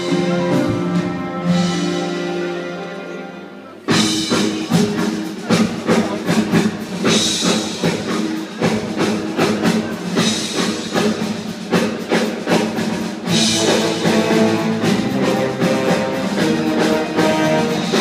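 Theatre orchestra playing curtain-call music for the musical: a held passage fades away, then about four seconds in the full orchestra comes in loud with a strong, busy percussive beat.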